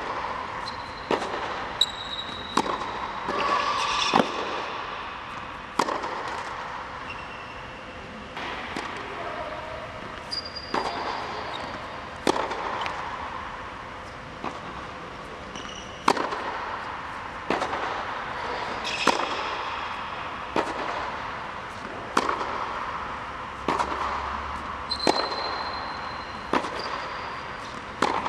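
Tennis rally on an indoor hard court: sharp pops of the ball off the racket strings and off the court, about one every second or two, each ringing in the hall. Short high squeaks of tennis shoes on the court surface come between the hits.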